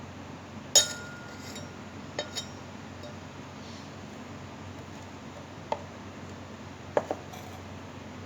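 Glass and kitchen utensils clinking during shake-making. A sharp clink about a second in rings briefly, then come two quick clinks, a single one later and a quick double clink near the end.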